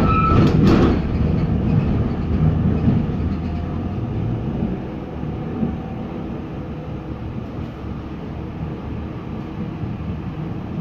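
Interior running noise of a TW6000 light rail car travelling along the track: a steady rumble, with a couple of clacks right at the start, easing off and getting quieter after about four seconds.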